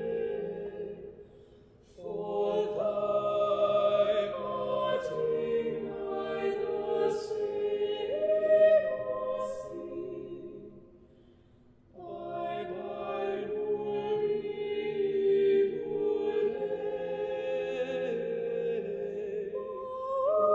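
A cappella mixed vocal ensemble of six singing a slow choral carol in sustained harmony. The singers sing long phrases, and two of them die away in the church's reverberation: a short hush follows about two seconds in and again around the middle, before the voices come back in together.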